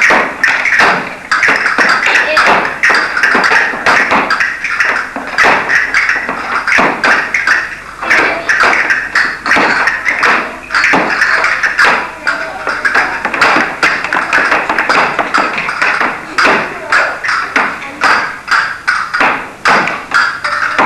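Castanets clicking in quick rhythmic runs, with shoes tapping on a wooden floor, over flamenco-style music.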